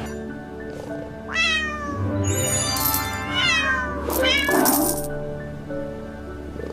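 A cat meowing about three times over background music, each meow sliding down in pitch.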